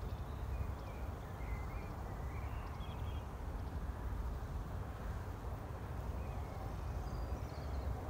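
Open-field ambience: a steady low rumble and hiss, with faint, scattered bird chirps that come and go.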